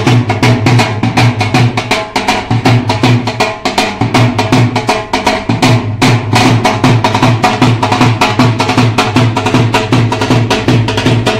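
Dhol drum beaten in a fast, steady rhythm, several strokes a second, with a deep booming beat under sharp cracking strokes.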